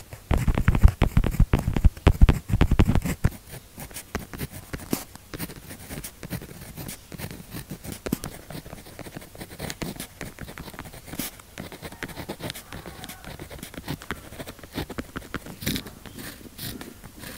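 Zebra pen writing on paper: a dense run of louder strokes for about the first three seconds, then quieter steady scratching of the pen tip with occasional sharp taps.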